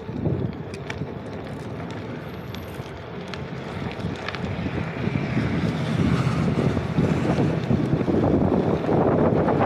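Wind buffeting the microphone during a ride, a gusty low rumble that grows louder about halfway through.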